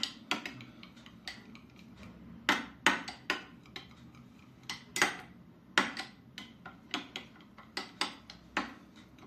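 Metal spoon clinking against a small bowl in irregular single taps while mixing a salad dressing.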